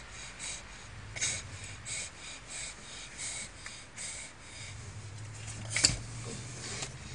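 Seatbelt webbing and buckle handled by small hands: a string of short soft rustles, about two a second, and one sharp click a little before the end.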